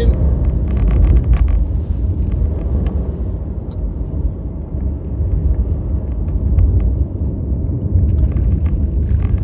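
Inside a car driving slowly over rough, rocky, potholed ground: a steady low road rumble with scattered knocks and rattles, a cluster about a second in and more near the end.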